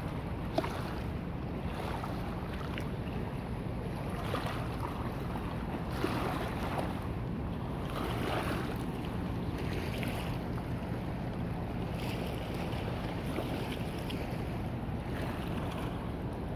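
Muddy water of a flooded river rushing and churning past in a steady rush, with wind buffeting the microphone.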